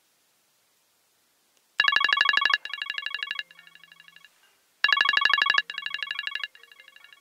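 Mobile phone ringing with a fast electronic trilling ringtone, twice, starting about two seconds in; each ring lasts about two and a half seconds and drops in loudness over three steps.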